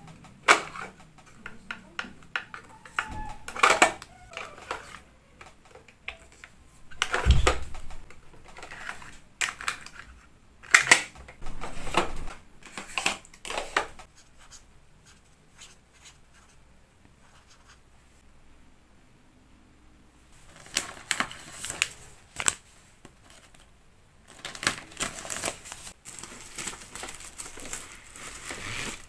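Small plastic organizer drawers being opened and shut while paper cards and inserts are handled: a scattered run of clicks, taps and rustles, with a dull thump about seven seconds in and a quieter spell in the middle.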